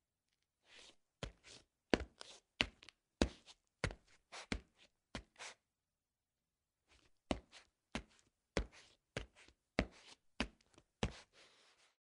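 Boots walking on a tile floor: sharp heel strikes with lighter scuffs between, about one and a half steps a second. The steps pause for about a second and a half halfway through, then walk on.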